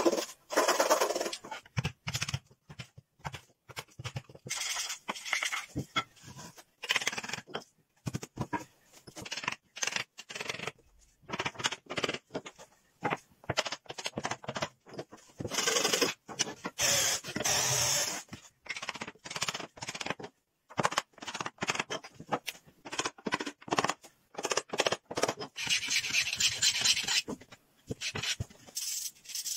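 Hand woodworking tools working wood: strokes of a frame saw cutting, and later hand-plane strokes shaving a board. The sound comes in short bursts broken by brief silences.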